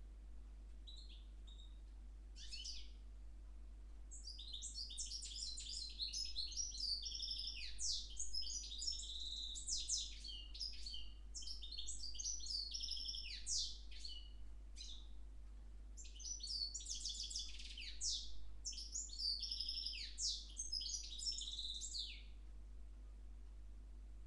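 A parva goldfinch × Timbrado canary mule singing: a few short call notes at first, then a long, fast twittering song of rapid high notes and trills, broken by a short pause about halfway and ending about two seconds before the close.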